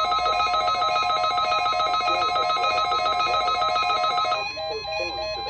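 NOAA Weather Radio WXL60 test signal tones: a loud, dense electronic warble of several tones trilling rapidly like a ringing phone bell. About four seconds in it thins out and drops in level, leaving a steady tone underneath. It is the weekly test being sent yet again because the station's broadcast message handler got stuck.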